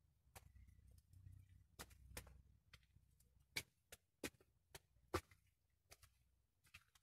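Footsteps: a string of faint, sharp, irregular taps and clicks, roughly two a second, with a low rumble under the first few.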